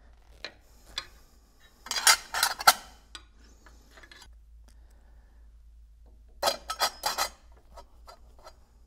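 Sheet-metal coupling guard being fitted onto a vertical multi-stage pump's motor bracket. It makes two bursts of metallic clattering and scraping, one about two seconds in and another about six and a half seconds in, with a few light clicks between.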